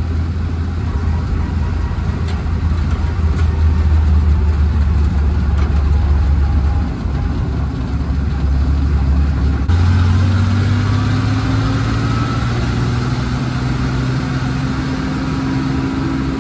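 1948 Dodge Power Wagon's flathead straight-six engine pulling the truck along, heard from inside the cab. The level dips briefly about seven seconds in; from about ten seconds the engine note steps up and then rises slowly as the truck gathers speed.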